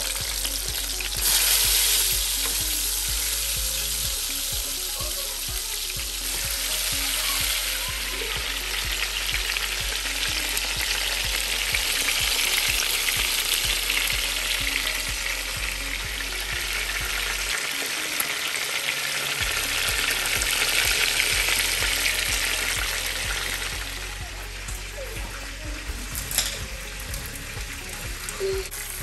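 Seasoned chicken drumsticks sizzling as they fry in hot oil in an aluminum pot: a steady high hiss that swells briefly about a second and a half in and again later, then grows quieter near the end.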